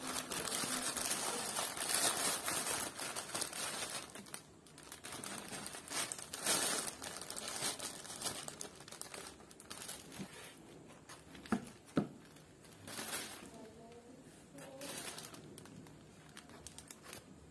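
Thin plastic carry bag and paper food wrapper crinkling and rustling as they are handled and opened. Loudest and steady for the first four seconds, then in short bursts, with two sharp clicks around the middle.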